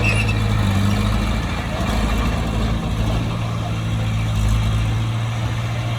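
Bulldozer's heavy diesel engine running steadily with a low, even drone.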